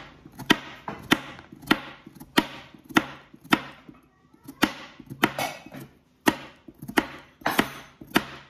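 Kitchen knife slicing through a raw carrot onto a plastic cutting board, a steady run of sharp chops about one every 0.6 seconds, with a short pause about halfway through.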